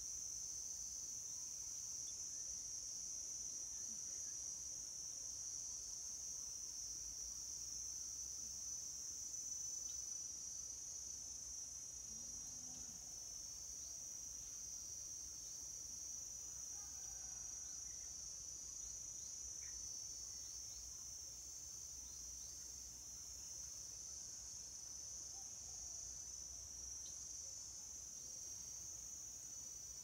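Steady, high-pitched insect drone, like crickets calling, unbroken throughout.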